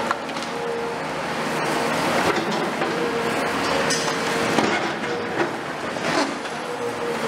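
Cat 336F long-front demolition excavator with its C9.3 diesel and hydraulics running under load, a steady whine coming and going, as its crusher jaws bite into a concrete floor slab. Scattered cracks and clatters of breaking concrete and falling rubble.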